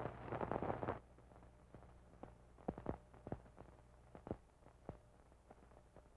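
Steady low electrical hum with scattered clicks and pops, after a dense crackle in the first second. This is the background noise of an old cartoon soundtrack transferred from VHS tape.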